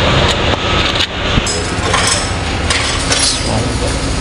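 An engine running steadily at idle, with a few light clicks over it.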